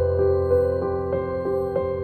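Soft background music with sustained chords over a held bass and gentle notes changing about every half second.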